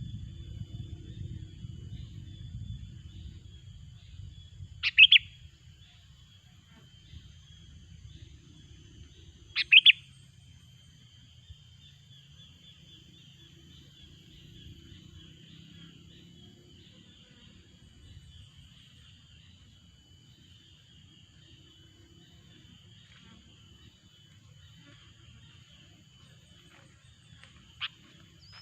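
Sooty-headed bulbul (kutilang) giving short, loud, sharp double calls, twice about five seconds apart and once more faintly near the end, over a faint continuous high chirring.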